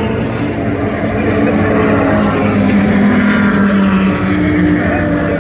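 Race car engines running at a track, one engine's pitch climbing steadily for a couple of seconds as it accelerates.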